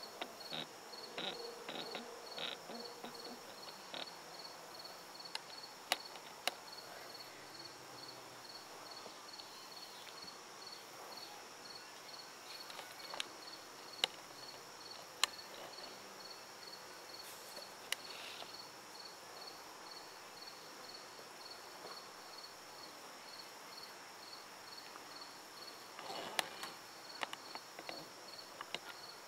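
Crickets chirping in a steady, evenly pulsed rhythm over a constant high insect drone. A few sharp clicks and some rustling handling noise come near the start and again near the end.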